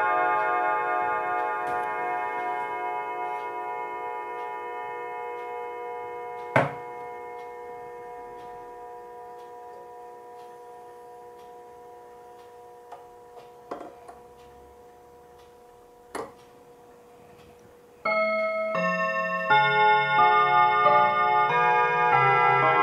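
Junghans mantel clock's chime rods ringing: a chime dies away slowly over about eighteen seconds, with a few sharp clicks as the minute hand is turned, then a new chime melody starts suddenly on the rods as the hand reaches the hour.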